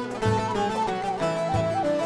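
Instrumental Turkish folk music: string instruments playing a melody that steps between held notes, over a low beat that falls about every second and a quarter.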